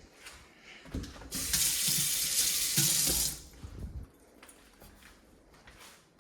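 Kitchen tap running into the sink for about two seconds, then shut off, with a few knocks of handling around it.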